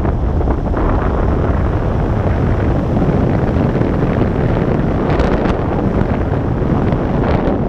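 Wind buffeting the microphone of a tandem skydiver's action camera under an open parachute canopy: a loud, steady rushing rumble, with brief hissier gusts about five seconds in and near the end.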